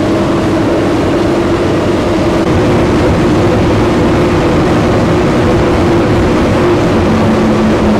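Twin 400 hp Mercury outboard motors running at high speed, a steady drone over loud rushing wind and water noise. A lower engine tone comes in near the end.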